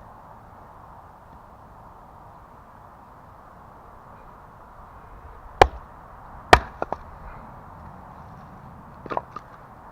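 Fiskars X17 axe striking a wet log twice, about a second apart, in two sharp chops. A few lighter knocks follow near the end.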